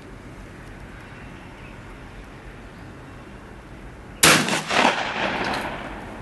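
A single shot from a 12-gauge Benelli Nova pump-action shotgun about four seconds in: one loud crack with echoes dying away over about two seconds.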